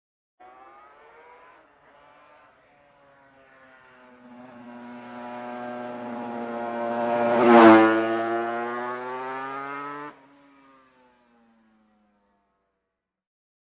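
Motorcycle engine approaching and passing by at speed. Its note grows louder for several seconds and peaks about seven and a half seconds in, then drops in pitch as it moves away. It cuts off abruptly about ten seconds in, leaving a faint tail.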